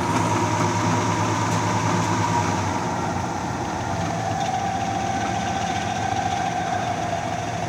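Clausing Model 2275 20-inch variable-speed drill press running under its 1 1/2 hp three-phase motor, with a steady hum and a whine. The whine drops in pitch about three to four seconds in, as the variable-speed drive is turned down toward low speed.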